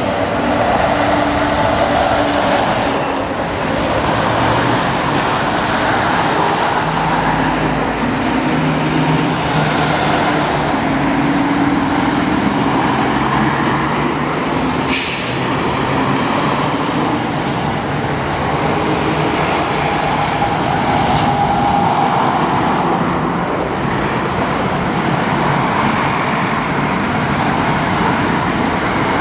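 Motorway traffic passing: heavy Mercedes-Benz diesel trucks, vans and cars running by at speed, engines and tyre noise in a steady mix. A short, sharp hiss cuts in about halfway through.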